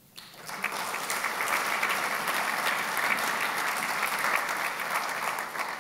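Audience applauding: many hands clapping together, starting abruptly and tapering off near the end.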